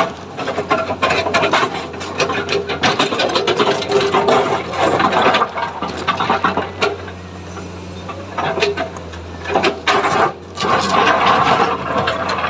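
Komatsu hydraulic excavator's diesel engine running steadily under load, with frequent knocks and rattles over it, louder in bunches.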